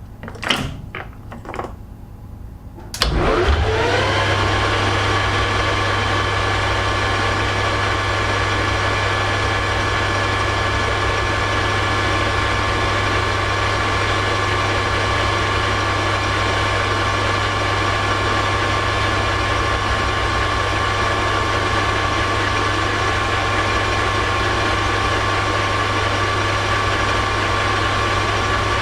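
A few clicks and knocks, then a metal lathe's motor and geared headstock start about three seconds in. They spin up within a second and run steadily at a speed set to around 1400 rpm, with a steady hum and a whine of gears.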